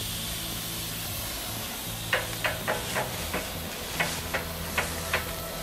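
Miniature live-steam locomotive hissing steam as it is pushed by hand along the track. About two seconds in, a run of about nine light clicks begins, roughly three a second.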